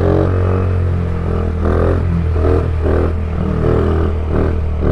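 Small dirt bike engine running as it is ridden: a steady low drone with repeated short bursts of revving that rise and fall.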